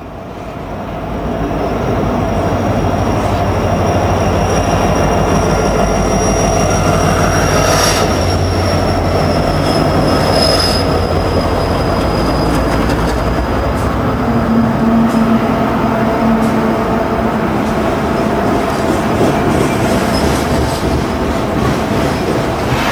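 Loaded coal train led by BNSF diesel locomotives rolling past, a loud steady rumble of the cars on the rails that swells over the first couple of seconds. A thin, high wheel squeal runs through it and drifts slowly lower, with two short knocks about eight and ten seconds in.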